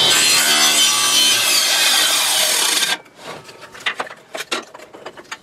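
SawStop table saw blade cutting through a glued-up segmented wood ring clamped in a pivoting jig, a loud sawing sound over the steady whine of the blade. It cuts off suddenly about three seconds in. Light clicks and knocks of the wooden jig being handled follow.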